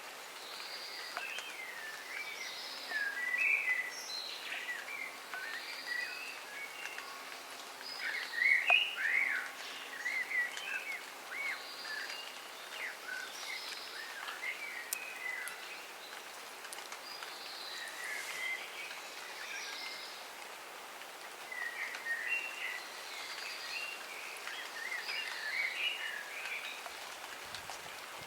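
Dawn chorus of several songbirds singing overlapping short, chirping phrases, over a steady hiss of light rain falling in a garden.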